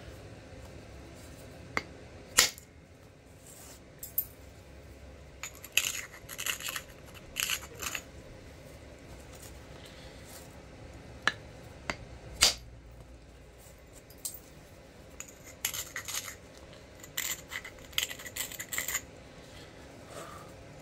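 Flint knapping with an antler punch: sharp knocks of strikes on the stone, the loudest about two and a half and twelve and a half seconds in, with clusters of small stony clinks in between.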